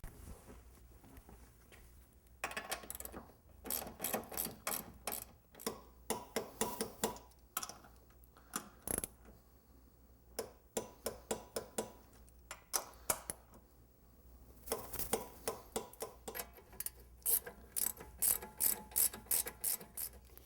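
Hand ratchet clicking in repeated bursts of rapid clicks as the nuts and bolts holding a new suspension strut are run down and tightened.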